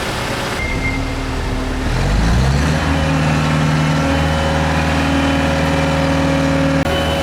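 A heavy vehicle's engine, most likely the lorry delivering the wing, runs, revs up about two seconds in, and then holds a steady, higher speed.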